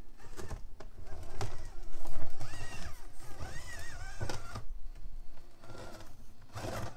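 Furitek Micro Komodo brushless motor in a 1/18 Traxxas TRX-4M crawler whining, its pitch rising and falling with the throttle as the truck climbs. Tyres and chassis knock and scrape on the rocks several times.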